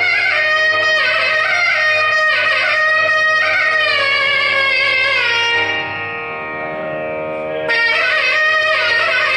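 Nadaswaram playing a Carnatic melody in gliding, ornamented phrases over a steady drone. About six seconds in it eases into a softer held passage for a couple of seconds, then the full sound returns.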